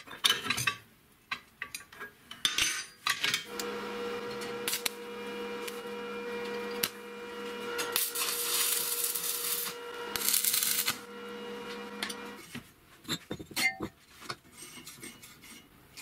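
A few metal clinks and clicks, then an angle grinder's motor running with a steady whine for about nine seconds before cutting off. A louder, hissier stretch comes in the middle, and scattered clicks follow.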